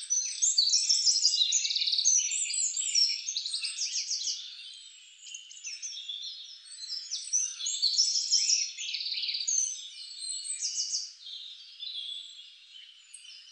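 A dense chorus of birds chirping and trilling, many calls overlapping, with rapid trills and quick pitch glides throughout. It is loudest in the first few seconds and again in the middle, and thins out near the end.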